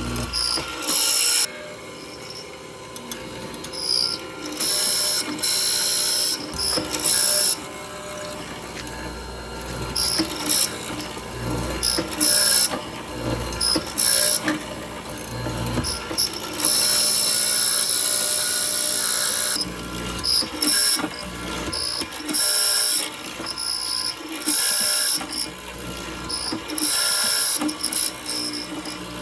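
Handheld power tool running in short bursts, switching on and off repeatedly, with one longer run of about three seconds past the middle.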